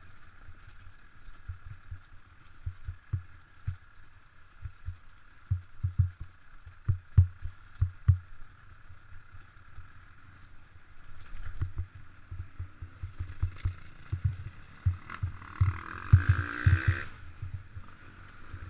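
Off-road motorcycle ride: a steady engine hum with frequent irregular low thumps and knocks as the bike bounces over rough ground, growing louder and busier near the end.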